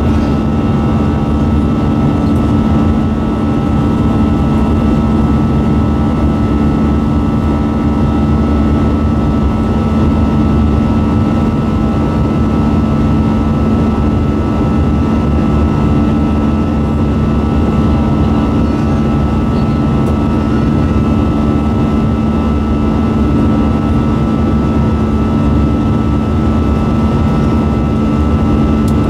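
In-cabin noise of an Airbus A320-214 in flight, its CFM56-5B engines running steadily: a constant rush of air with a low, steady hum and a fainter higher tone over it.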